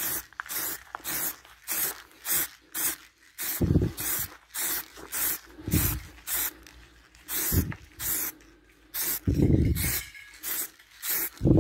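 Aerosol spray-paint can hissing in short, quick bursts, about two a second, as paint is sprayed onto a car's hood. A few dull low thuds come in between, the loudest about three and a half seconds in and near the end.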